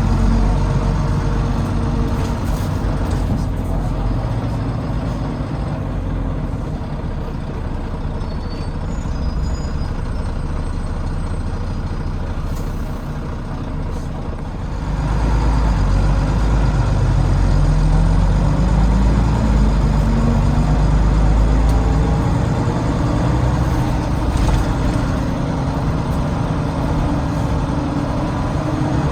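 Volvo B9TL double-decker bus's Volvo D9B diesel engine running, heard from the back seat. About halfway through it gets louder as the bus accelerates, and its note rises steadily.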